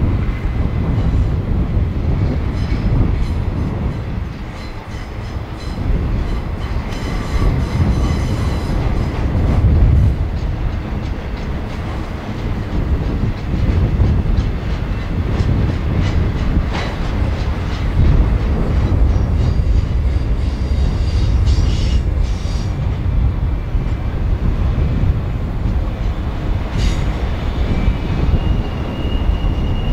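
A train rolling past: a steady low rumble of wheels on rail with scattered clicks, and a brief high squeal near the end.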